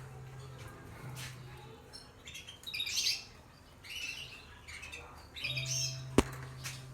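Caged canaries chirping and calling in several short bursts, with a single sharp click about six seconds in.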